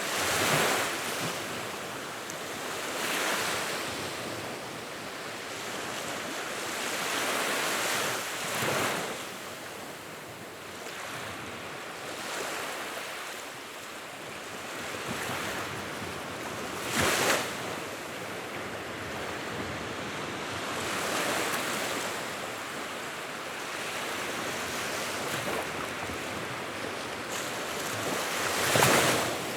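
Wood fire burning in a fireplace: a steady rushing hiss that swells and eases every few seconds, with scattered crackles and a couple of louder pops, one about halfway through and one near the end.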